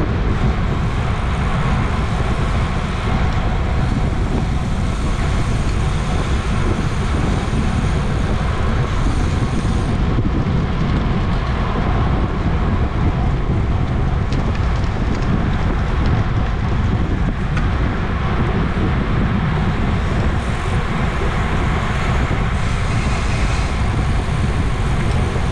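Steady wind rushing over the microphone of a racing cyclist's camera at race speed, a heavy low rumble that does not let up.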